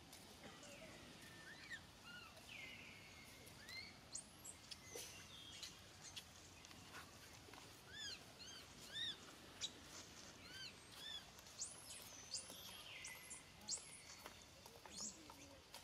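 Faint, high-pitched animal calls: short chirping notes scattered through, in quick runs around the middle, with a few longer falling whistles near the start and near the end.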